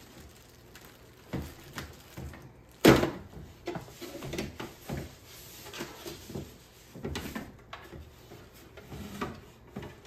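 Packaging being pulled off a plastic bird feeder: paper wrapping rustling and crinkling, with scattered knocks of the plastic feeder on a wooden table. A single sharp knock about three seconds in is the loudest sound.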